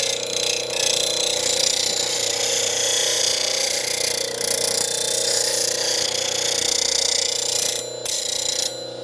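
A carbon steel carving gouge is ground on the CBN wheel of a Baldor bench grinder, making a steady hiss of steel against the wheel over the motor's even hum. The grinding stops just before the end while the motor keeps running.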